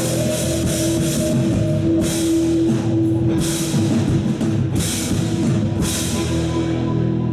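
Live rock band playing: an electric guitar holds one note over the band, with four cymbal crashes from the drum kit about a second and a half apart.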